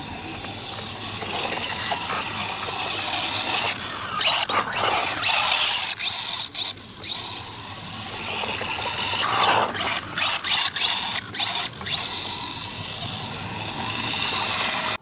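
Kyosho Ultima Pro electric RC buggy with a brushless motor running on grass: a high-pitched motor and drivetrain whine that cuts out briefly several times from about four seconds in, then picks up again.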